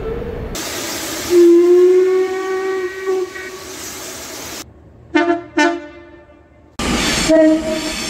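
Steam locomotive whistle sounding one long blast over the hiss of escaping steam. Then two short train horn toots, and near the end another train's horn sounding as it passes.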